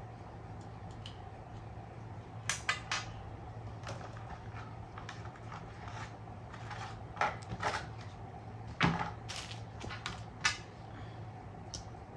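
Irregular clicks and light knocks of hard plastic parts being handled as a GoPro camera mount is fitted onto a motorcycle helmet, over a steady low hum.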